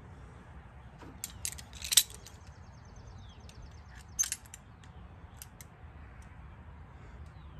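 Sharp metallic clicks and clacks as a metal clamp is opened and snapped onto a threaded steel plug, a quick run of clicks peaking about two seconds in and another clack about four seconds in, then a few light ticks.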